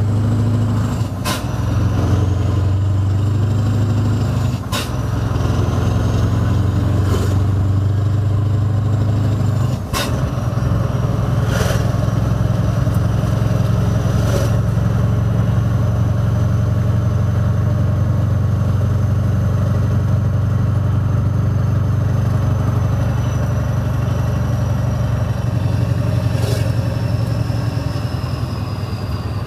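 Scania R500 V8 diesel truck with a loud exhaust, heard from inside the cab while driving: a steady, loud, deep engine drone that briefly drops about ten seconds in, with a few sharp clicks from the cab along the way.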